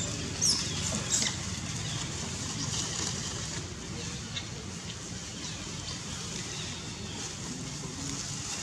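Young long-tailed macaque squealing: two short high-pitched cries, about half a second and a second in, with fainter squeaks later, over a steady low rumble.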